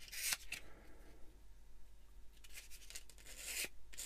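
Sanding stick rubbed over a small plastic model-kit part: two short strokes at the start, then a longer stroke from about two and a half seconds in.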